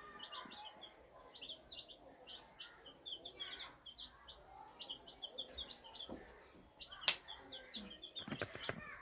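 A group of chicks peeping: many short, high cheeps repeating quickly and continuing through, faintly. A single sharp click sounds about seven seconds in.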